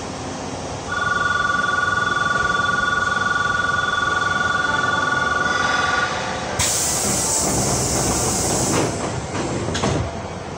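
Station departure signal: an electronic two-tone buzzer sounds steadily for about five seconds. Then a loud hiss of compressed air from the Hankyu 8000 series train, with a few low knocks, runs for two to three seconds.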